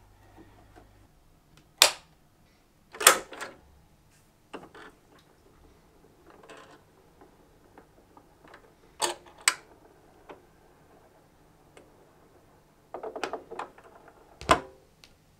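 Separate clicks and knocks from handling a Pioneer PL-990 turntable, as the record is set on the platter, controls are pressed and the automatic tonearm mechanism moves. Near the end comes a cluster of small clicks, then the loudest click with a low thump as the stylus sets down on the record.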